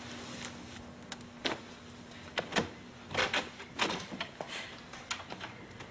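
Irregular soft knocks and clicks of footsteps and a door being handled as someone goes out through it, with a faint steady hum that stops about a second and a half in.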